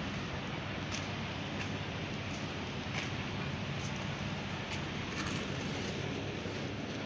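Steady machinery noise: a low running hum under a wash of noise, with a few faint clicks.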